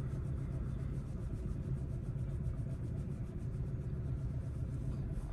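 Steady low rumble inside a stationary car's cabin: the car's engine idling while it waits at a red light.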